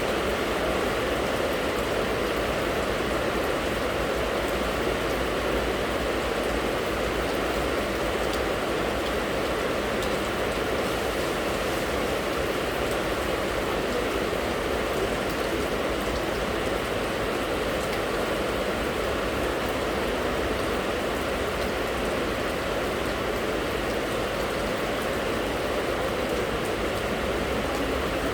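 Rain falling steadily: an even, unbroken hiss with no distinct drops or pauses.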